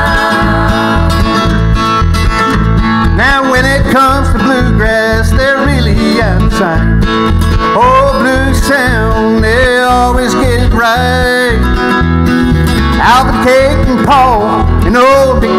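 Live bluegrass music: acoustic guitar over a steady low beat, with a group of voices singing in harmony. It opens on a held chord, and the sung lines start moving about three seconds in.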